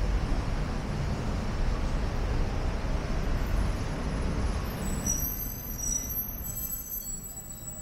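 City street traffic: a steady rumble of passing vehicles that eases off about two-thirds of the way through, with faint high squeaks near the end.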